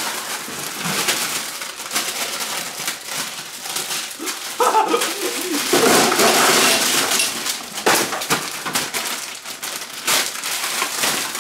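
Plastic candy wrappers and packets rustling and crinkling as they are grabbed, shaken out and torn open, with small wrapped candies clattering as they drop. A few short voice-like sounds come in about five to seven seconds in.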